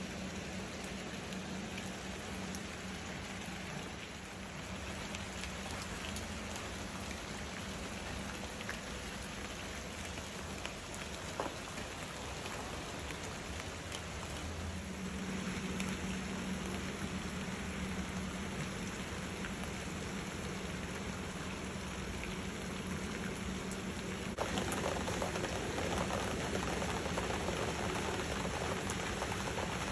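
Steady rain falling on leaves and wet pavement, a continuous patter that grows louder about halfway through and again near the end.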